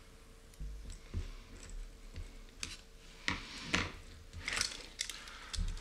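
Small anodized aluminium RC car parts clicking and tapping against each other as they are handled and fitted by hand, a scattered series of sharp metal clicks, with a few dull bumps on the work surface.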